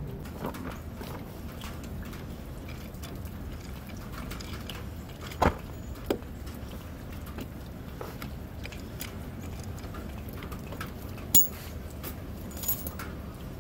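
A few sharp metal clicks and clinks from a ratchet wrench loosening a canister-style oil filter housing during an oil change, over a steady low hum.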